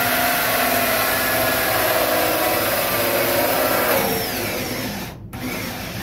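Power drill spinning a 2-inch hole saw through 4-inch PVC pipe, the saw teeth grinding into the plastic. It runs steadily, eases off about four seconds in, stops briefly about five seconds in, then starts again.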